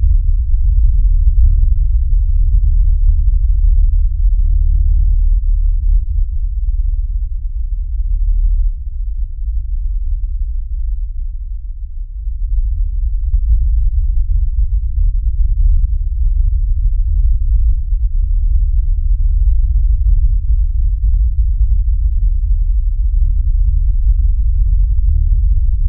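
Deep, steady low rumbling drone with nothing high in it; it eases off for a few seconds near the middle, then returns.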